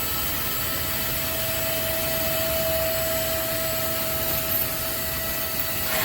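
Vacuum cleaner motor running steadily: an even rushing noise with a steady whine.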